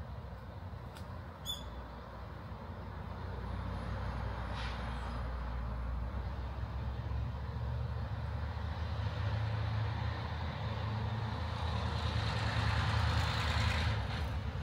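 Road traffic: a motor vehicle approaches, its engine and tyre noise growing steadily louder until it passes close near the end.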